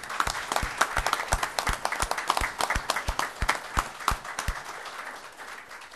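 A small group applauding with many overlapping hand claps. One nearby clapper claps steadily about three times a second until about four and a half seconds in, and the applause then fades out near the end.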